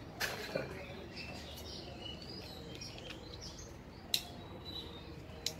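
Small birds chirping in the background, with a few sharp clicks from the hand work of stripping a power cable, the sharpest about four seconds in.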